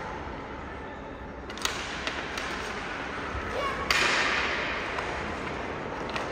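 Several sharp cracks over a steady background noise: one about a second and a half in, two fainter ones soon after, and a louder one about four seconds in followed by a brief rush of noise that fades away.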